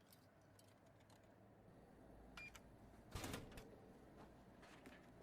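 Near silence with a few faint clicks and one short, louder noise a little after three seconds in.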